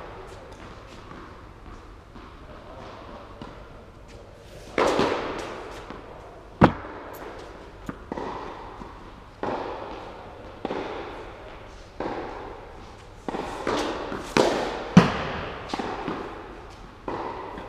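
Tennis balls being struck by rackets and bouncing on the court in a rally, a sharp pop roughly every second and a bit, each ringing on in a long hall echo. The sharpest hits come about six and a half and fifteen seconds in.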